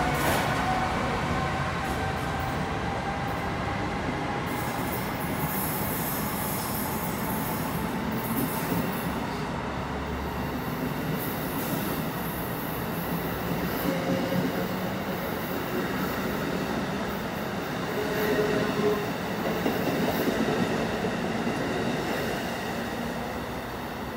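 Amtrak train behind an ACS-64 electric locomotive going past on the track alongside: a falling whine as the locomotive goes by at the start, then the steady rush and rumble of the stainless-steel coaches' wheels on the rails, fading near the end as the train pulls away.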